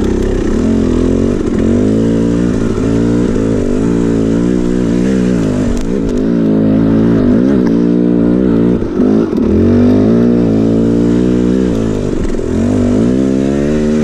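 KTM 300 XC two-stroke single-cylinder dirt bike engine riding a trail, its revs constantly rising and falling as the throttle is worked, with a brief drop about nine seconds in.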